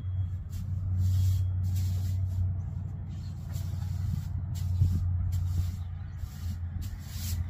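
Straw broom sweeping the porch floor: a string of bristly swishes, about one every half second to second, over a steady low drone.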